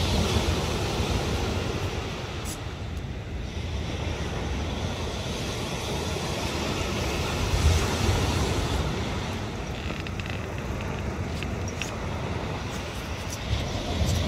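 Small waves breaking and washing on a shingle beach, a steady surf noise with one louder break about eight seconds in, and wind rumbling on the microphone.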